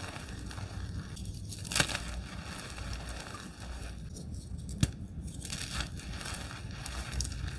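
Reformed gym chalk crunched and crumbled by hand in loose chalk powder: a dry, crackly crunching, with two sharp snaps, one just under two seconds in and one just under five seconds in.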